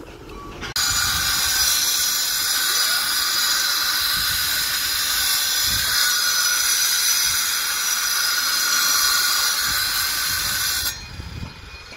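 Handheld power cutter grinding into rock, giving a loud, steady, high-pitched hiss and whine. It starts suddenly just under a second in and cuts off near the end.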